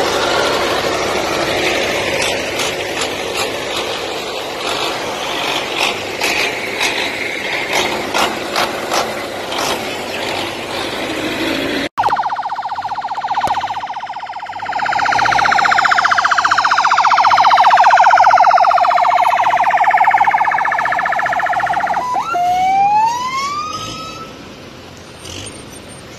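Tractor engines running amid a crowd's noise. After a sudden cut comes a vehicle siren: a held tone that slides slowly down in pitch, then two quick rising whoops near the end.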